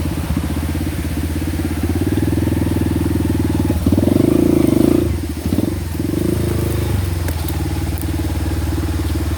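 Honda Win motorcycle's single-cylinder two-stroke engine running under way. It grows louder for about a second around four seconds in, then drops back with a short dip.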